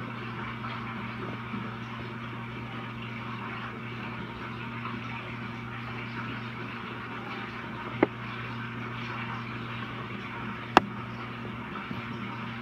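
Reef aquarium equipment running: a steady low electrical hum with an even hiss of moving water above it. Two sharp clicks about eight and eleven seconds in.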